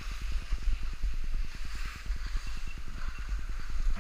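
Wind buffeting an action camera's microphone as a skier glides downhill, an uneven low rumble over the hiss of skis sliding on packed snow.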